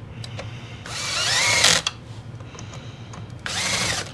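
Cordless drill-driver running in two short bursts, about a second in and again near the end, driving screws into the plastic brush-motor housing of a Dyson DC17 cleaner head. The motor's pitch rises as it spins up in each burst, and the first burst, the louder one, stops suddenly.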